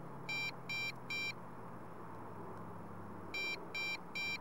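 An electronic alert beeping in two sets of three short, high beeps, about three seconds apart, over a faint steady low hum.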